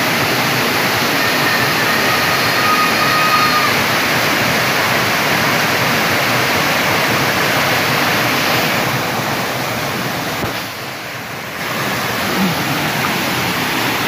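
Waterfall pouring into a rocky plunge pool: a loud, steady rush of falling water, dipping briefly about ten seconds in.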